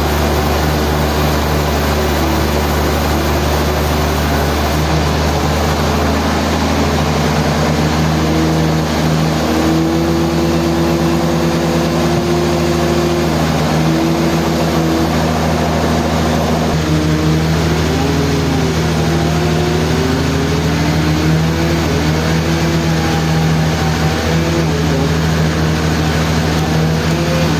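Sawmill machinery running: a loud, steady motor drone with a wavering whine above it.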